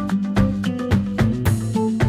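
Upbeat background music with a steady beat of percussion, bass and plucked melody.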